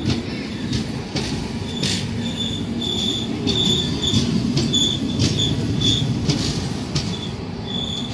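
Coaches of the Chennai Egmore–Guruvayur Express rolling past close by: a steady low rumble with the wheels knocking irregularly over rail joints and a high wheel squeal that comes and goes.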